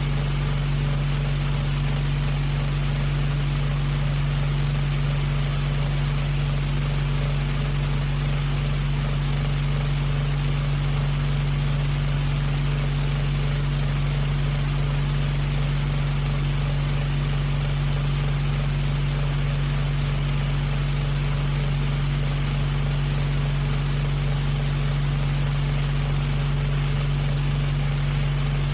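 Portable electric fan running steadily: a constant motor hum under an even rush of air from the blades.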